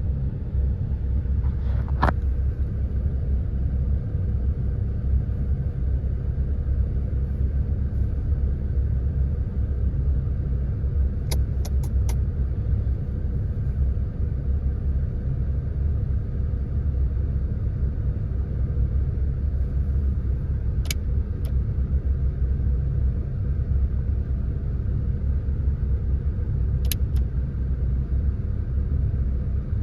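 Saturn's engine idling with a steady low rumble, at an idle the owner says misfires. A few short clicks come now and then, three in quick succession about a third of the way through.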